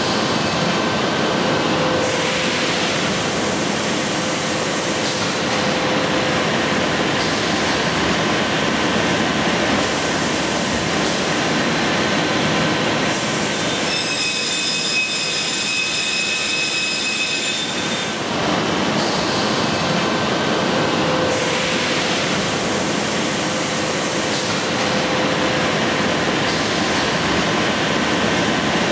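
SCM automatic beam saw running through a cut on a wooden panel: steady, loud machine noise. About halfway through, the rush eases for a few seconds and a high whine comes through.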